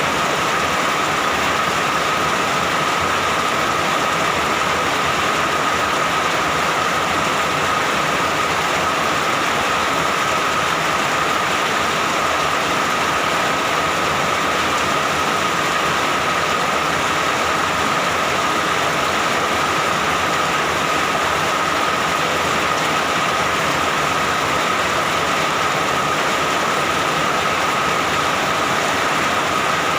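Steady rain, an even unbroken hiss with no thunder claps.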